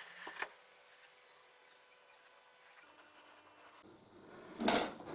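A faint click, then a quiet stretch, then a brief loud scraping rub about four and a half seconds in.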